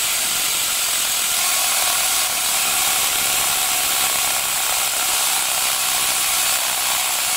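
Steady hiss and whir of an xTool F1 Ultra laser engraver running a rust-removal pass over a rusty steel horseshoe, with no breaks or rhythm.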